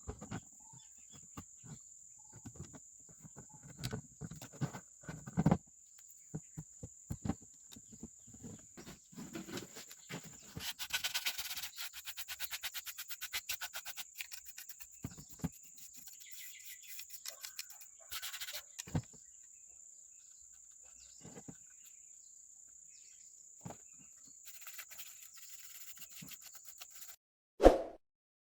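A steady high-pitched insect-like chirring that cuts off near the end, under scattered clicks and taps of small hand work. There is a quick run of rapid ticking about ten seconds in and a single louder thump near the end.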